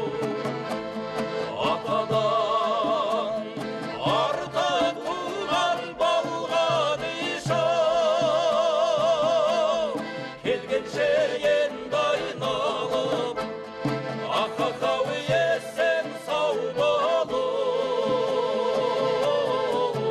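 A Kazakh folk song: a singer holding long notes with heavy vibrato over steady instrumental accompaniment, with a brief break about ten seconds in.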